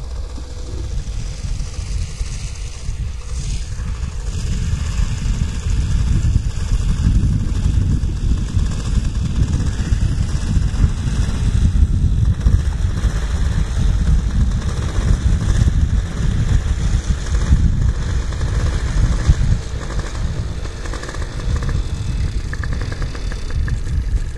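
Wind buffeting the microphone: a loud, uneven low rumble that grows stronger a few seconds in.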